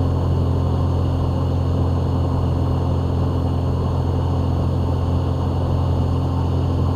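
Van's RV-7 light aircraft's piston engine and propeller droning steadily, with no change in power.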